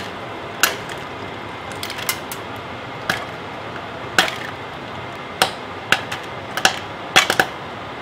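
Popcorn kernels popping inside an aluminium beer can heated over a gas burner: sharp, irregular pops, about a dozen, with a quick run of three near the end, over a steady hiss.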